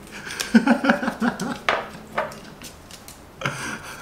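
Fingers rummaging among folded paper slips in a small ceramic bowl, with a few light clinks against the bowl and paper rustling as a slip is unfolded.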